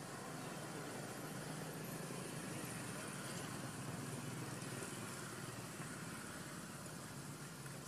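Steady outdoor background noise: an even hiss with a faint low hum and no distinct events.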